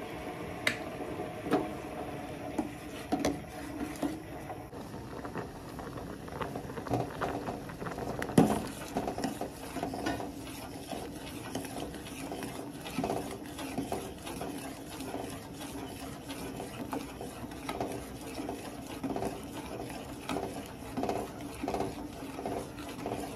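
Stainless-steel pot of vegetable broth boiling while a ladle stirs it, clinking and scraping against the pot's sides in irregular knocks, the loudest about eight seconds in.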